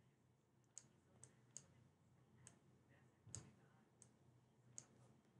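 Faint, irregular clicks of a computer mouse button, about seven or eight over a few seconds, as letters are drawn stroke by stroke on screen.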